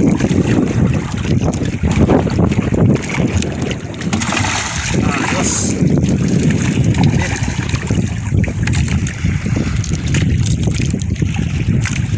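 Steady wind buffeting the microphone on an open boat at sea, a loud low rumble.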